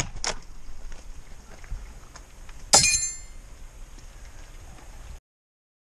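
A single sharp metallic clank with a brief ringing about three seconds in, amid faint handling noise; the sound cuts off abruptly near the end.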